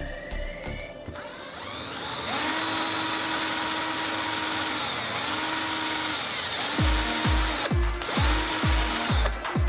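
Cordless drill boring into a small blue plastic block, its motor whine rising, holding and dropping away as the trigger is squeezed in several spurts. Electronic music with a thumping bass beat comes in about seven seconds in.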